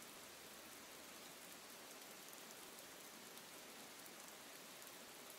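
Faint, steady rain falling on wet pavement.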